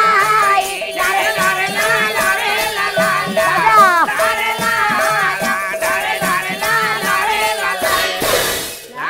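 Odia Pala chorus singing in unison, accompanied by large brass hand cymbals and a held instrumental tone, with a wash of cymbal noise near the end.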